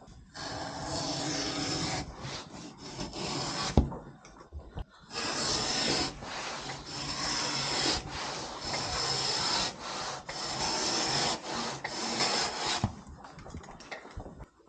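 Long rasping strokes of a hand tool worked against a wall board, about seven strokes of one to two seconds each with short pauses between them. One sharp knock comes a little under four seconds in.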